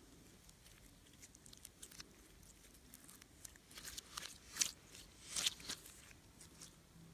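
Slime being worked by hand, giving irregular small crackles and clicks, with a louder run of them about four to six seconds in.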